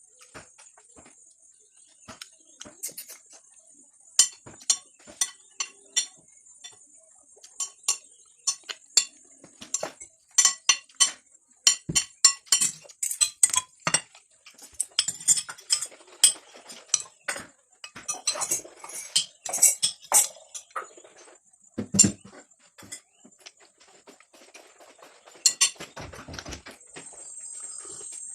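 Cutlery clinking and scraping against a plate in quick strokes of a meal, followed by two duller knocks near the end. Insects chirp steadily in the background.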